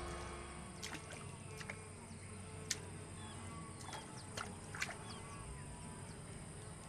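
Blue wildebeest drinking at a river's edge with its muzzle in the water: faint sips and laps, with a handful of small sharp splashy clicks.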